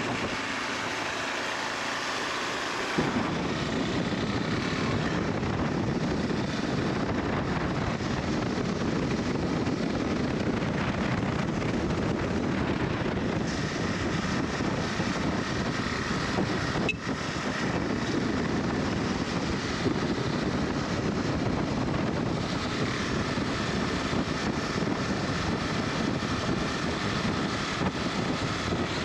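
KTM 390 Adventure's single-cylinder engine running on the move, with wind rush. The engine grows louder and fuller about three seconds in and keeps a steady drone, briefly dipping near the middle.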